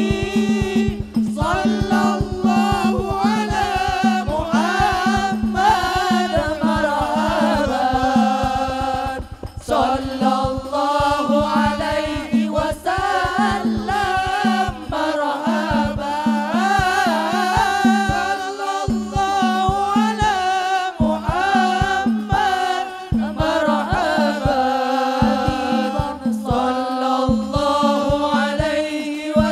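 Arabic devotional singing (sholawat) in a wavering, ornamented melody over fast, steady hand-drum beats, with a brief dip about nine seconds in.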